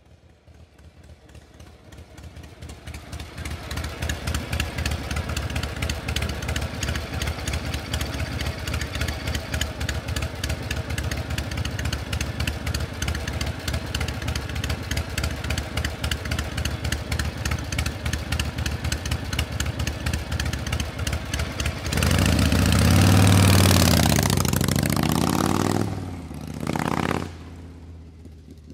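Metal gear mechanism running with a fast, even, clattering rhythm that fades in over the first few seconds. About three-quarters of the way through it changes to a louder whirring sweep that rises and falls in pitch. A short final burst follows, then the sound drops away.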